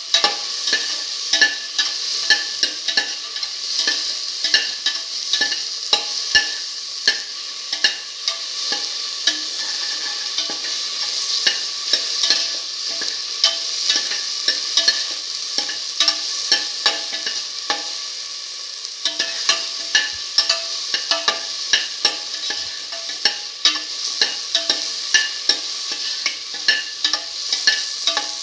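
Shallots, garlic and tomato pieces sizzling in hot oil in a stainless steel pan, with a metal slotted spoon scraping and clicking against the pan as they are stirred; the clicks come rapidly and irregularly over a steady sizzle.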